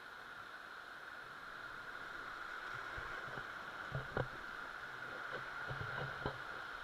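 River water rushing steadily past a raft. A scattered run of short knocks and bumps starts about three seconds in; the loudest comes just after four seconds.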